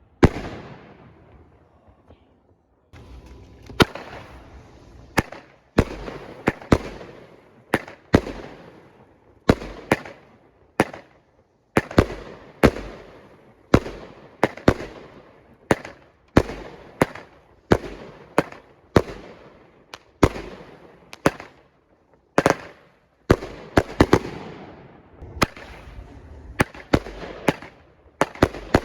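Fireworks going off: a long run of sharp bangs, roughly one or two a second, each trailing off as it fades, with a brief lull about two seconds in.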